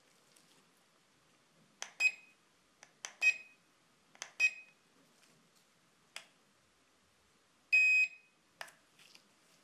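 SJRC S20W drone transmitter beeping as its buttons are pressed: a sharp button click, then a short high beep, three times about a second apart, then one longer beep near the end. The beeps confirm changes to the speed and GPS settings.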